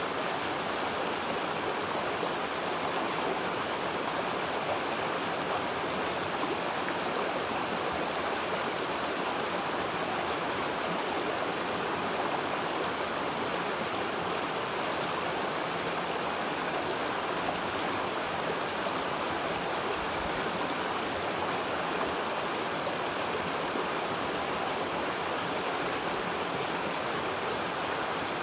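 Running water, a steady, unbroken rush with no changes.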